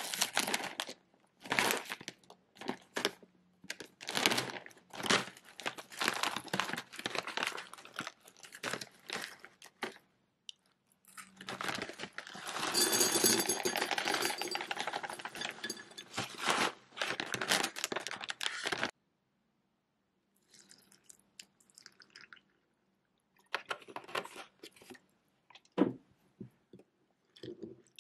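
Plastic snack bag crinkling as it is handled and opened, then granola clusters pouring and rattling into a ceramic mug for several seconds, which is the loudest part. Near the end come a few soft spoon clinks and scrapes in the mug.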